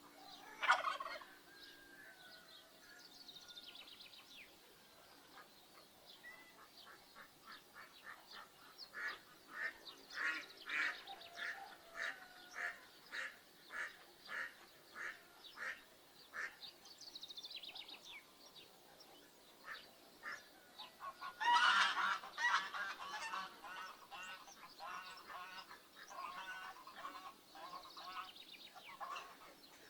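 Farmyard poultry calling, geese honking among them: a run of repeated calls at about two a second, then a louder cluster of calls a little past the middle, with small birds chirping now and then.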